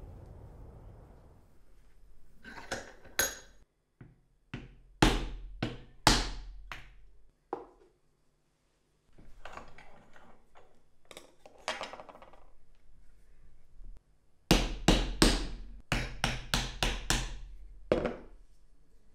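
Sharp knocks of blows working an old wooden chisel handle loose from the rusty tang clamped in a bench vise, partly struck through a wooden block set against the handle's ferrule. Scattered single knocks come first, then a quick run of about a dozen knocks near the end.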